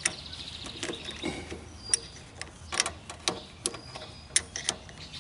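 Wrench working a nut on a lawn tractor solenoid's terminal: irregular sharp metal clicks and clinks.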